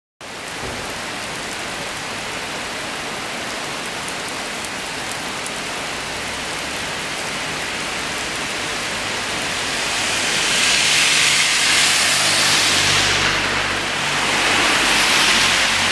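Steady hard rain hissing onto a wet street and pavement. About two-thirds of the way through, the hiss swells twice with a low rumble underneath, as cars pass with their tyres swishing on the wet road.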